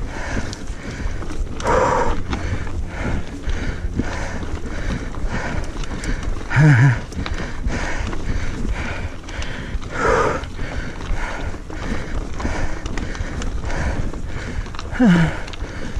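Mountain bike rolling over a rocky, gravelly trail: tyres crunching on loose stones and the frame and components rattling in a steady, even rhythm, with a few louder jolts. Two short low vocal sounds from the rider come about the middle and near the end, the second falling in pitch.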